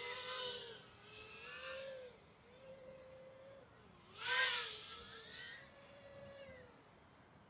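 Brushless motors of a BetaFPV Air65 tiny whoop drone whining in flight, the pitch rising and falling with the throttle. It swells louder as the drone passes close during the first two seconds, and loudest about four seconds in.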